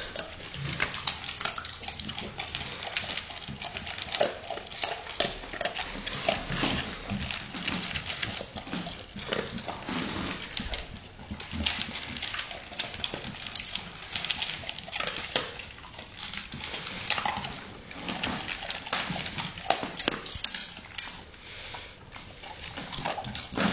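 Dogs eating dry kibble from metal bowls: a continuous, irregular crunching and chewing, with pellets clicking and rattling against the metal.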